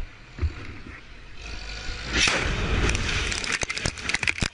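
An air-dropped bomb exploding close by about two seconds in, a loud blast with a deep rumble, followed by a rapid clatter of falling debris and gravel.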